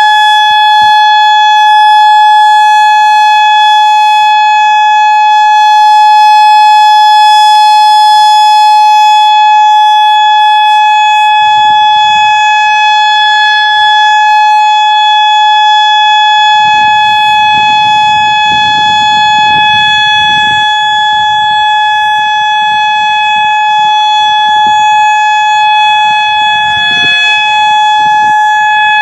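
Modulator 6024 II electronic outdoor warning siren sounding its steady alert tone: one loud, unbroken pitch with strong overtones, held without rising or falling.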